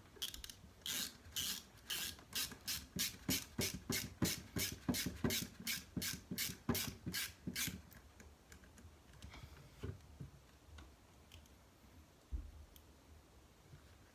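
Hex driver turning screws by hand into the plastic parts of an RC crawler chassis: a run of about twenty short, even strokes, roughly three a second, lasting about seven seconds, followed by a few scattered clicks and a low knock near the end.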